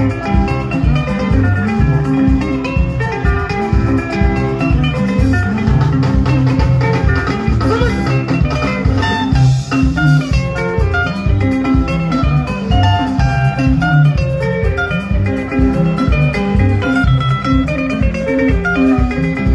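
Sungura band playing an instrumental passage: fast, interlocking electric guitar lines over a driving bass and drum beat.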